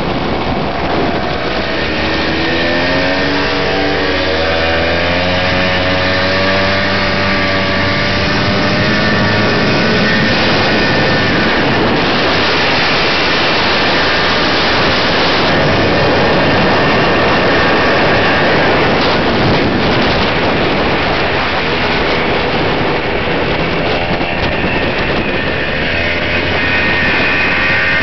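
Husqvarna army motorcycle's two-stroke engine under way, its pitch climbing as it accelerates a few seconds in, holding steadier through the middle and rising again near the end, under heavy wind rush on the microphone.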